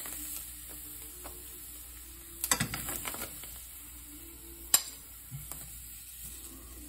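Slices of queso fresco sizzling quietly in a frying pan while a metal fork clicks against the pan as they are lifted out. There is a cluster of clicks about two and a half seconds in and one sharp, loudest click a little over two-thirds of the way through.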